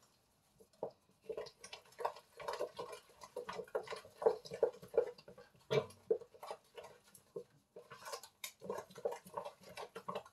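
Wooden spoon stirring thick cake batter of flour, grated coconut and water in a stainless steel bowl, in quick rhythmic strokes about three a second, with the spoon scraping and knocking the bowl.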